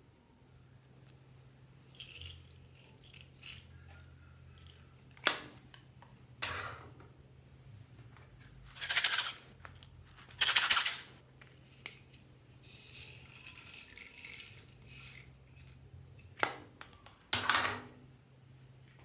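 Slime being squeezed and worked by hand: irregular short squelching, crackling bursts with a few sharp clicks, the loudest two about halfway through.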